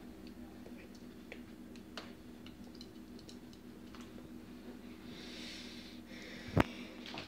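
Quiet room tone with a steady low hum and a few faint small clicks, a soft hiss about five seconds in, and one sharp click near the end.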